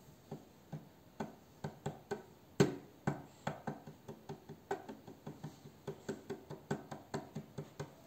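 Fingers tapping on a wooden tabletop: a run of light knocks, a few a second and getting quicker, with one much louder knock about two and a half seconds in.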